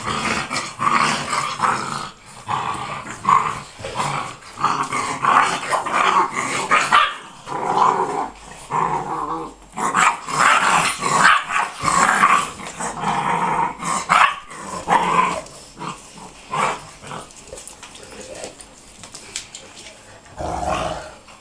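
Six-week-old mastiff-type puppies growling, with some barks, as they play-fight: a dense, almost unbroken run for the first fifteen seconds or so, then scattered short bursts and one more near the end.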